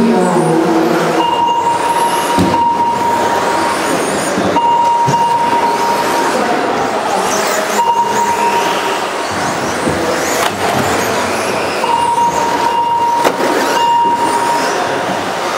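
Radio-controlled off-road model cars racing, a steady mix of motor and tyre noise. A steady high tone cuts in and out every few seconds.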